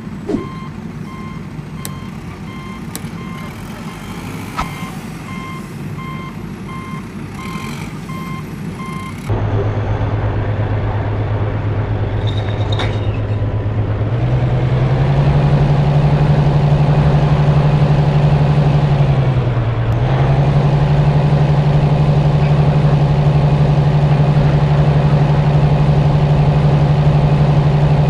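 A reversing beeper sounding in a steady series of beeps, then about nine seconds in a heavy vehicle engine cuts in, running steadily, rising in pitch a little and holding there with one brief dip.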